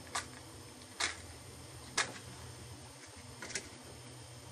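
A match struck repeatedly against a matchbox: four short, sharp scrapes about a second apart, the last one fainter and doubled, until it lights.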